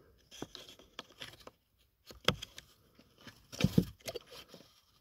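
Plastic clicks and scrapes as an evaporator temperature sensor is pushed into its port in the car's air-conditioning heater box, with a sharp click about two seconds in and a louder clatter toward the end.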